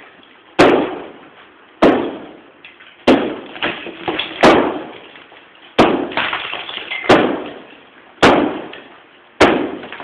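Repeated heavy blows against a plaster-covered wall, eight strong ones about one every 1.2 seconds, each a sharp crack that dies away over about half a second.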